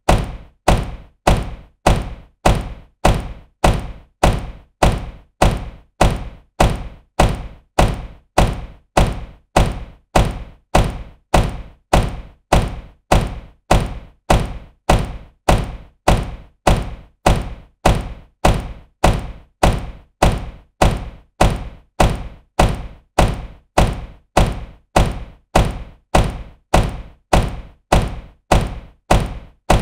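Supercar door shutting with a solid thunk, repeated over and over at a steady, fast rhythm: a looped door-closing sound effect.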